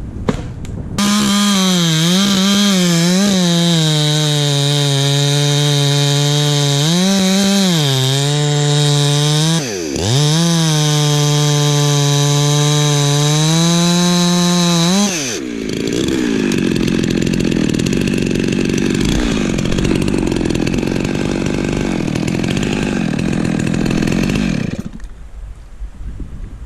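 Two-stroke chainsaw running at high revs with the throttle eased off and opened again several times, sharply once about ten seconds in. For the next ten seconds or so it gives way to a rougher, lower noise, which stops a couple of seconds before the end.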